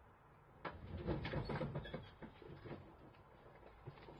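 Ride-on lawn tractor, engine off, being pulled backward by hand out of a van onto wooden plank ramps: its wheels rumble and knock over the floor and planks. The rumble is loudest from just under a second in, then gives way to scattered knocks.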